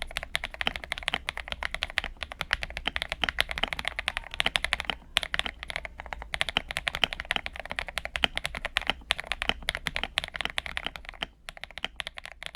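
Typing on a Feker IK75 Pro mechanical keyboard with lubed Akko Matcha Green switches, tuned stock stabilisers, Akko ASA keycaps and PE foam, polyfill and tempest tape mods: a fast, dense run of keystrokes with brief pauses about five, nine and eleven seconds in.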